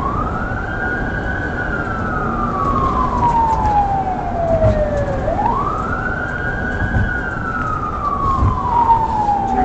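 Police siren on a wail, twice rising quickly in pitch and then falling slowly, over steady road and engine noise.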